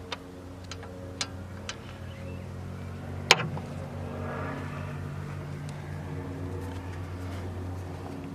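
Metal hand tools clicking a few times, with one sharp loud clack about three seconds in, over a steady low engine-like hum.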